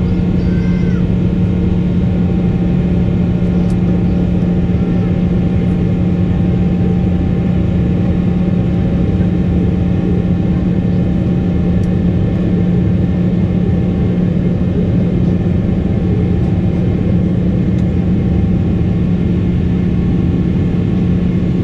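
Jet airliner cabin noise during the climb after takeoff: the engines and rushing air make a loud, steady noise with a constant low hum underneath.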